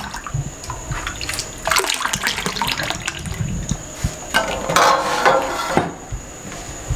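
Milk ladled with a steel ladle into a glass tumbler and splashing back into a large steel pot of milk, in separate pours, the longest about two-thirds of the way through.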